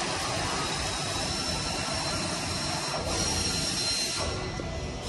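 Steady whirring hiss of a running power tool, with a thin high whine over it and a brief break about three seconds in.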